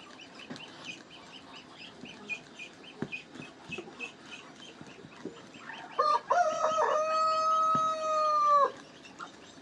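A rooster crowing: a few short notes, then one long held note that drops away at the end, starting about six seconds in.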